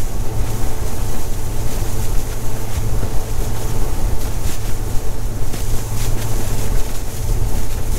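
Bass boat's outboard engine running steadily with a low drone as the boat travels over choppy water, with heavy wind noise on the microphone.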